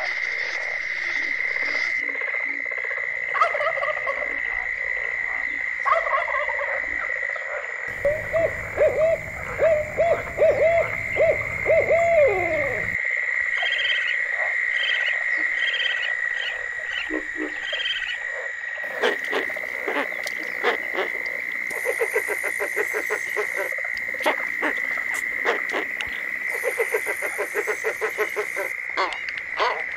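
Night wetland sounds of frogs calling: a steady high-pitched chorus runs throughout, with rapid clicking, croaking calls in the second half. From about 8 to 12 seconds an owl hoots in a quick series that ends in a falling call. The mix changes abruptly every few seconds, as one recording cuts to the next.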